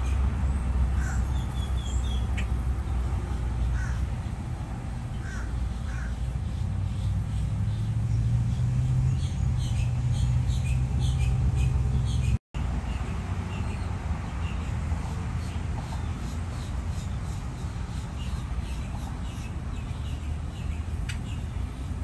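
Grackles calling, many short harsh calls in quick succession, over a steady low rumble.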